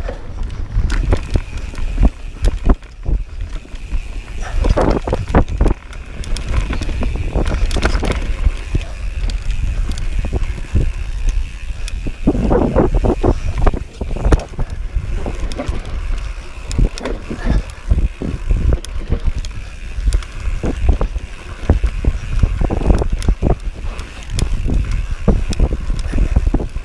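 Mountain bike riding fast down dirt singletrack: a constant low rumble of wind on the camera's microphone and tyres on the ground, with many sharp knocks and rattles from the bike jolting over bumps and roots.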